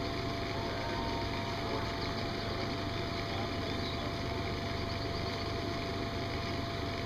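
A steady low drone of a running motor, unchanging throughout, with a constant thin tone above it.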